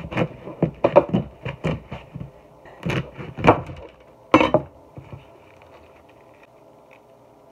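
Knife cutting through the ends of ears of corn in the husk: a run of sharp crunching cuts and knocks that stops a little past halfway through.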